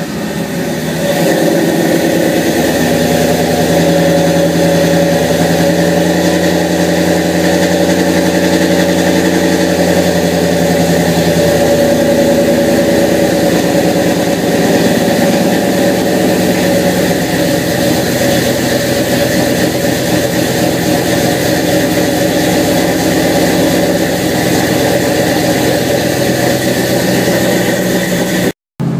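Ford Mustang GT's 4.6-litre three-valve V8, fitted with aftermarket camshafts, idling steadily on its first start since the cam install. The idle speed settles a little lower partway through.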